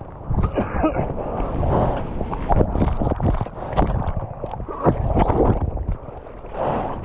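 Sea water sloshing and splashing right at a waterproof action-camera housing, with wind buffeting the microphone: an irregular run of close splashes over a low rumble.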